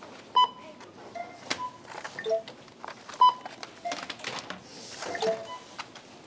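Supermarket checkout scanners beeping: short single beeps at two or three different pitches, about one a second, with rustling and light clatter between them.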